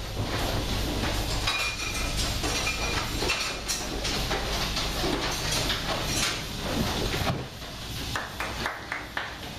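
Clinking and clattering of metal in a goat milking parlour, with scattered knocks as goats move along the raised platform against its metal headlock rails and hanging milking units, over a low hum that drops away near the end.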